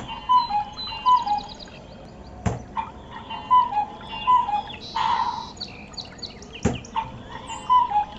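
Talking Tom electronic toy playing a short chirping, bird-like electronic jingle that loops about every four seconds, each pass opening with a click.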